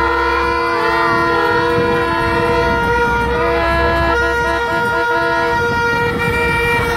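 Several horns held in long steady notes, stuttering off and on partway through, over the shouting and cheering of a crowd of children.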